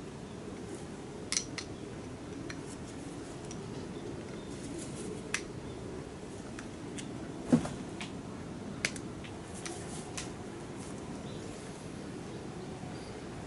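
Scattered light metallic clicks and clinks of hand tools and small metal parts being handled, with one louder knock about seven and a half seconds in, over a steady low background hum.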